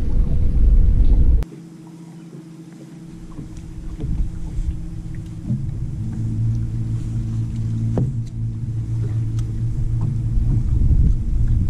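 Wind rumbling on the microphone for about the first second and a half, then it cuts off. A steady low hum from a bow-mounted electric trolling motor follows and grows stronger about halfway through, with a few light clicks.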